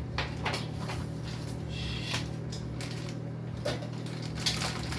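Spoon knocking and scraping in a pan while ingredients are stirred together: several separate clicks and knocks over a steady low hum.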